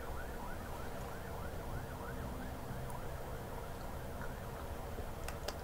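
Faint emergency-vehicle siren in a rapid yelp, its pitch rising and falling about four times a second. It fades out near the end, and a few light clicks follow.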